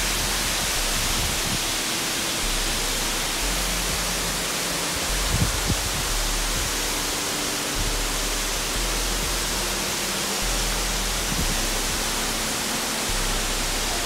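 Waterfall: a steady, even rush of falling water, with two soft thumps about five seconds in.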